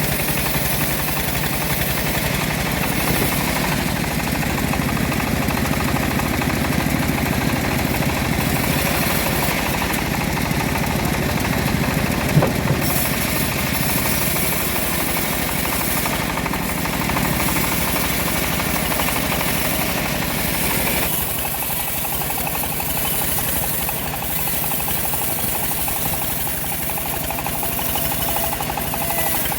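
Homemade engine-driven bandsaw sawmill running steadily. There is a single sharp knock about twelve seconds in, and the tone changes a little after twenty seconds.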